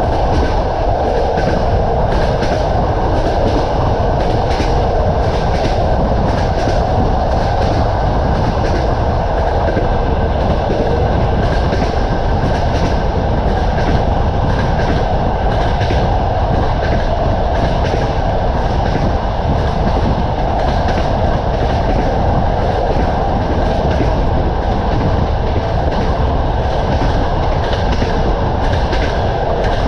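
Passenger train running along the track: the wheels clack steadily over the rail joints above a constant rumble, with a faint high hum running through.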